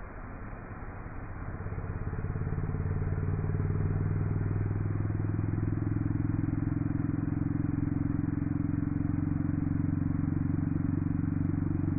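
A motor vehicle engine running at a steady, unchanging speed. It grows louder over the first two or three seconds, holds steady, then cuts off abruptly at the very end.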